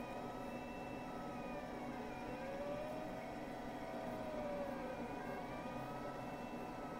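VEVOR diode laser engraver cutting wood: the gantry's stepper motors whine, their pitch rising and falling in slow arcs as the laser head speeds up and slows down along the cut contour, over a steady machine hum.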